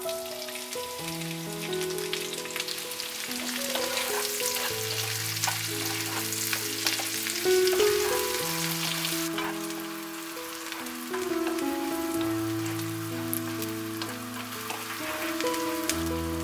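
Sliced onions sizzling as they hit hot mustard oil, then frying while they are stirred with a wooden spatula. The sizzle is loudest at first and eases about nine seconds in. Gentle instrumental music plays underneath.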